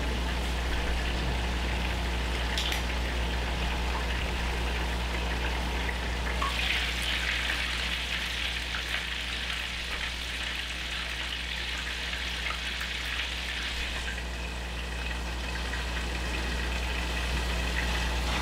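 Two thick slabs of pork belly sizzling in their rendered fat in a frying pan, a steady frying hiss that grows louder for several seconds in the middle, over a steady low hum.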